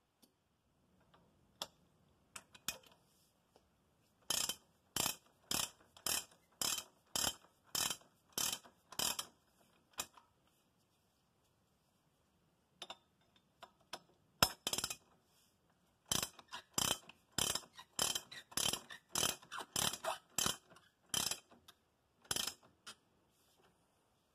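Ratchet wrench clicking in short repeated strokes, about two a second, in two runs with a pause and a few odd clicks between.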